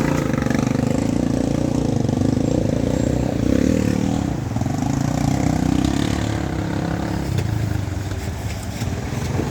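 A vehicle engine running close by, loud and fairly steady with slight shifts in pitch, starting abruptly and easing a little near the end.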